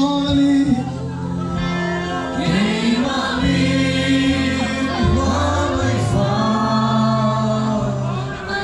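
A large crowd singing a gospel worship song together over amplified music, with steady held notes.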